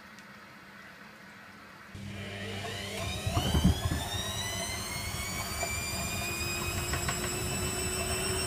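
Servis Slimline 308S washing machine going into its spin about two seconds in: the motor whine rises in pitch as the drum speeds up, with a few heavy thumps from the drum a second later, then holds as a steady high spin whine.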